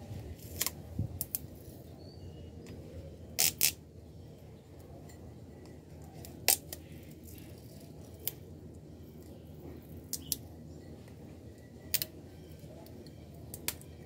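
Scattered sharp clicks and crackles of a clear PET plastic sheet and adhesive tape being handled around a drinking glass, about ten in all. The loudest is a quick pair about three and a half seconds in.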